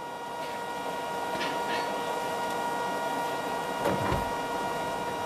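Steady mechanical hum with a hiss underneath it, holding several fixed tones, and a short low thud about four seconds in.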